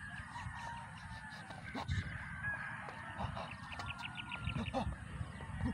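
Domestic fowl calling in the background, over low wind rumble on the microphone, with a few thuds and scuffs of shoes on concrete from footwork.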